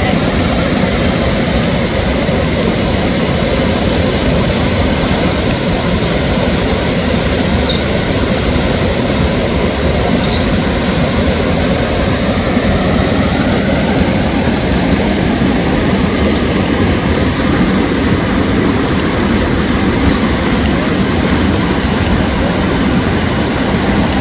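Steady rushing of water spilling over a dam, a constant loud noise with a deep rumble underneath and no breaks.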